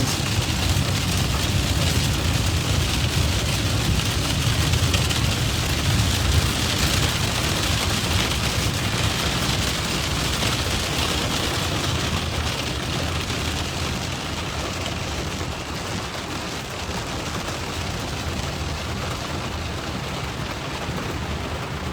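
Steady road and engine noise inside a moving vehicle, with rain on the car, easing a little after about 13 seconds.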